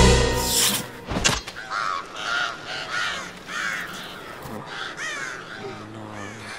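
Crows cawing over and over, about two caws a second, after a single sharp thud about a second in; film music fades out at the very start.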